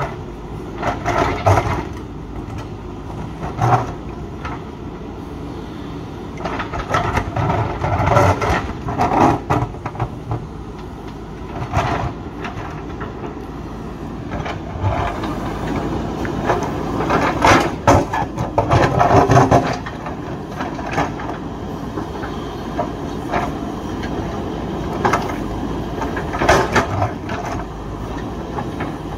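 JCB 3DX backhoe loader's diesel engine running under load, with irregular clattering and scraping as the bucket works against rock; the loudest stretch comes a little past the middle.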